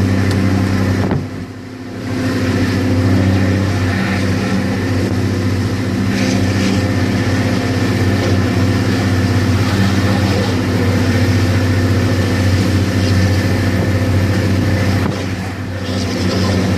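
The 380 hp Cummins diesel engine of a Yutong ZK6129HE coach running steadily under way with a steady drone. Its loudness dips briefly about a second in and again near the end.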